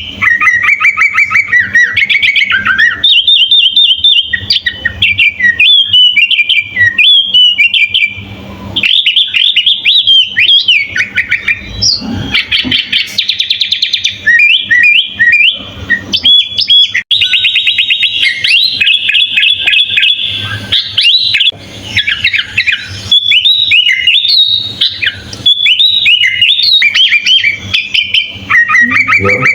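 Sooty-headed bulbul (kutilang) singing nonstop, a rapid, loud stream of varied chirps and whistled phrases with only a couple of short pauses. A faint steady low hum lies underneath.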